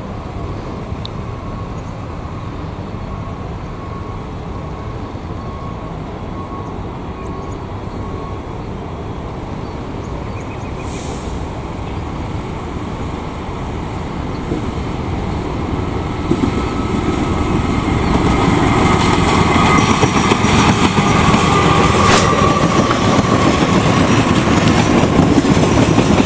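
Diesel-electric locomotive of a passenger train approaching with its engine running. The wheels of the locomotive and coaches run over the rails as the train passes, the sound growing louder from about two-thirds of the way in.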